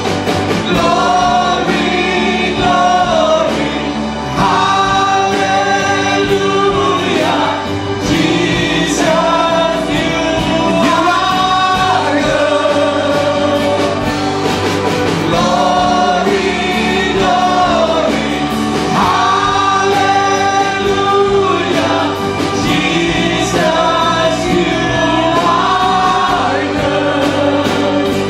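Live gospel worship band: several men and women singing long phrases together into microphones, backed by electric guitars.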